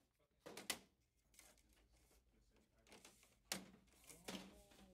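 Plastic bezel clips of a Samsung UN60FH6003F LCD TV snapping free as the front bezel is pried off the panel: a few sharp clicks, two close together about half a second in and two more near the end.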